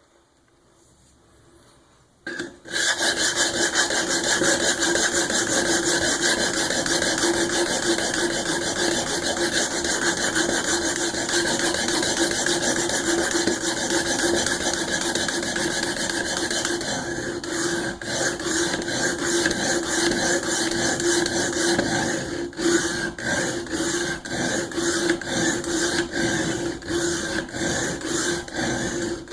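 Cold Steel SRK VG-1 steel blade scraping across the sharpening plate of a Work Sharp Guided Sharpening System, raising a burr on the edge. It starts about two seconds in as continuous scraping with a steady ringing note. From about halfway it breaks into quicker strokes with short gaps.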